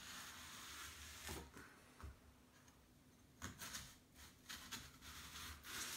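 Faint scratching and light clicks of a knife tip slitting leeks lengthwise on a plastic chopping board, a few short strokes with pauses between them.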